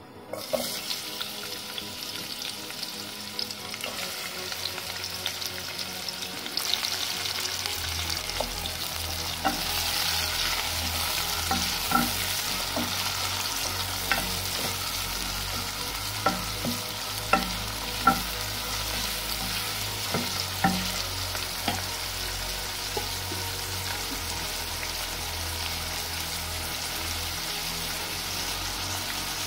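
Sliced onions sizzling as they hit hot oil in an aluminium pot, the frying starting suddenly and growing denser a few seconds later. A wooden spoon stirs them, knocking against the pot now and then in the middle stretch.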